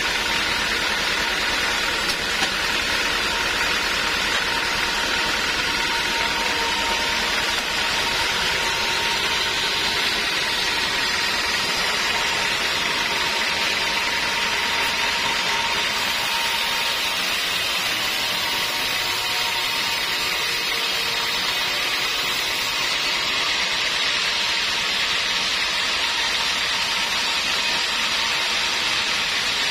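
Band sawmill running steadily, its blade ripping lengthwise through a teak log, a constant rushing sawing noise over the machine's hum. A faint whine fades out about halfway through.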